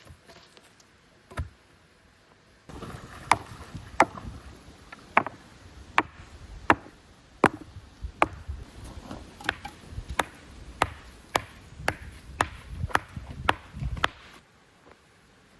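Wood being chopped: a steady run of sharp strikes, roughly one and a half a second, starting a few seconds in and stopping shortly before the end.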